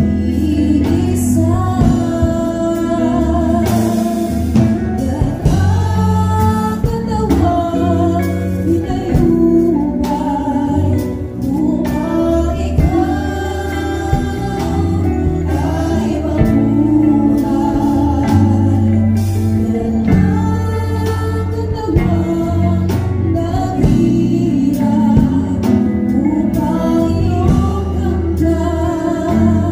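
A live worship band playing a gospel song, with electric guitars and bass under a woman singing the lead into a microphone.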